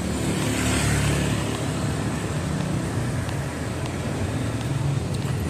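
Steady road traffic noise from vehicles on a city street, a little louder around a second in.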